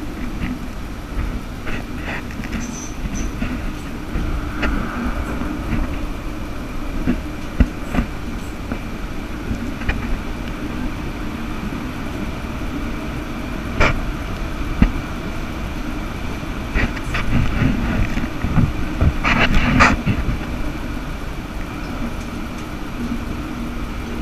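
Stadler Variobahn light-rail tram running along its track, heard from inside the car behind the driver's cab: a steady rolling rumble and hum with scattered knocks from the wheels over rail joints, and a cluster of them near the end. Partway through, it passes into a tunnel.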